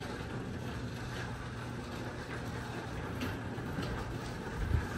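Garage door opener running as a sectional garage door rolls up, a steady mechanical hum with a fine rattle.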